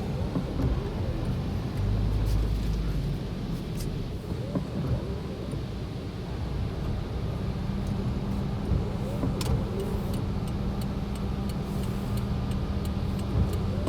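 Strong coastal wind buffeting the microphone: a low, uneven rumble that swells and eases in gusts, with faint scattered clicks.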